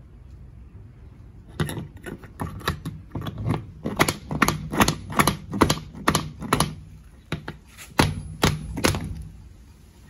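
Hammer multitool tapping at a ring-shank nail in a wooden board to work its claw under the nail head: a run of sharp knocks, irregular at about two or three a second, starting about a second and a half in and stopping near the end.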